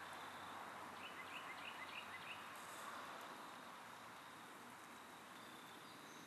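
Faint outdoor ambience: an even hiss with a steady high thin tone, and a quick run of about five short chirps about a second in.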